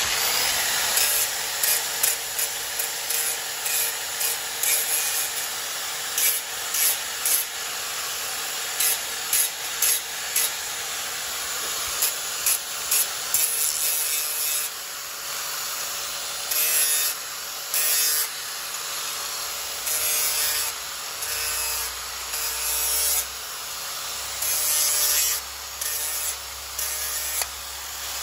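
Electric angle grinder running, its abrasive disc grinding the steel pipe and flange of an exhaust test pipe to prep them for welding. A steady motor whine with repeated short, louder scraping bursts as the disc is pressed onto the metal.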